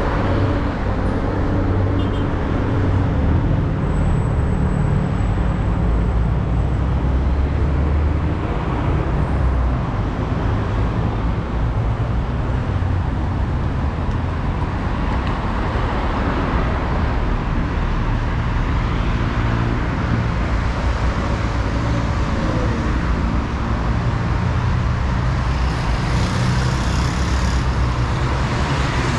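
Steady road traffic noise from a multi-lane road, with cars passing continuously. A hissier pass stands out near the end.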